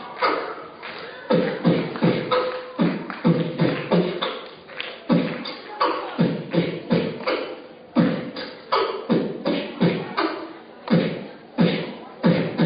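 Beatboxing: sharp vocal-percussion hits, about two to three a second in an uneven pattern.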